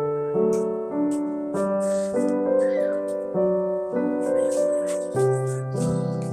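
Background music: a piano-led tune with its chords changing every half second to second, over light, crisp percussion ticks.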